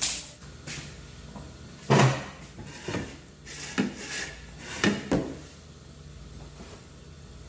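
Dishes being handled on a table: a series of about six knocks and clinks of plates, a small container and a spoon. The loudest knock comes about two seconds in.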